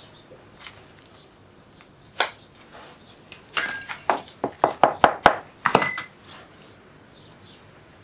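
Sharp taps of a metal hand tool on a sand-filled wooden moulding flask: one tap about two seconds in, then a quick run of about eight taps from about three and a half to six seconds in, some with a short metallic ring.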